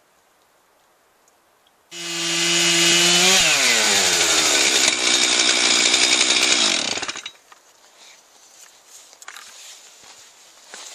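Stihl chainsaw in an Alaskan chainsaw mill, fitted with a ripping chain, running at full throttle through a rip cut in a Douglas fir log. It starts suddenly about two seconds in, holds a high steady pitch for a moment, then the engine pitch sags steadily over several seconds as it labours in the cut, and it stops abruptly about seven seconds in.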